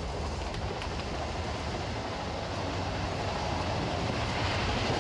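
Passenger train carriage interior noise: a steady rumble and running noise of the train under way, growing slightly louder near the end.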